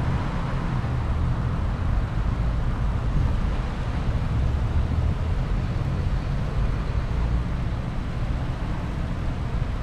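Road traffic noise: a steady low rumble of cars on the street, with no single distinct event.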